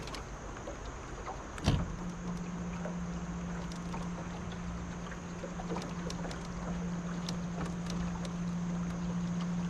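Boat's electric trolling motor: a sharp thump a little under two seconds in, then the motor's steady low hum runs on, with scattered light ticks.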